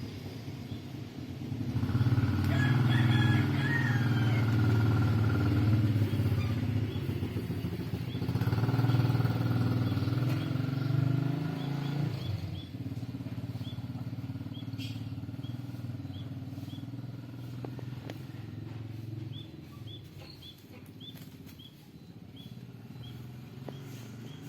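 A motor engine running steadily, loudest for about ten seconds before it fades; then a bird chirps repeatedly with short, evenly spaced high calls.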